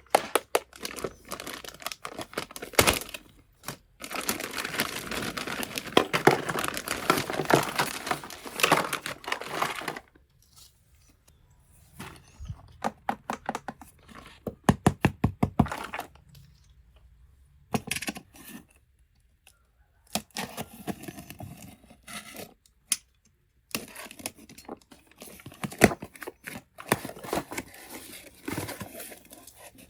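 Plastic packaging of a toy kitchen set being torn and crinkled, in a long rustling stretch early on, followed by runs of small sharp clicks and taps.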